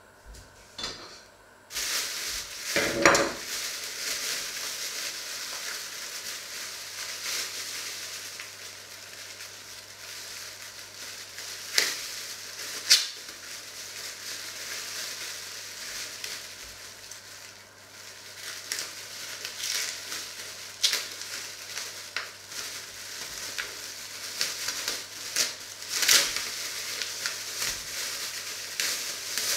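Thin plastic bag crinkling and rustling as hands work it open around raw meat, with a few sharper, louder crackles.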